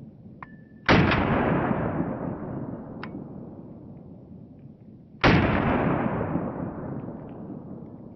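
Two pistol shots from an Argentine DGFM Sistema Colt Model 1927 1911 in .45 ACP, about four and a half seconds apart. Each is a sharp crack whose echo dies away over several seconds. A couple of faint ringing ticks come between the shots.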